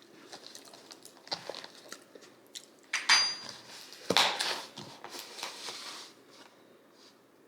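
Crinkling, clicking and rustling of dessert packaging being handled, in short bursts, with the loudest rustles about three and four seconds in.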